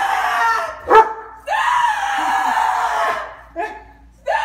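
Small dog barking: a sharp bark about a second in, then one long high-pitched cry lasting over a second, and a short yelp near the end.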